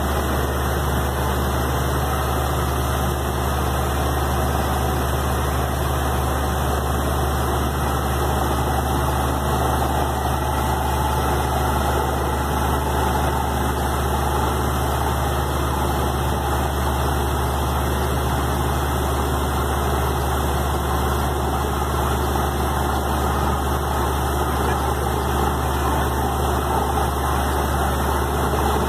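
Borewell drilling rig's engine running steadily, a deep, even drone, with muddy water washing out of the bore beneath it.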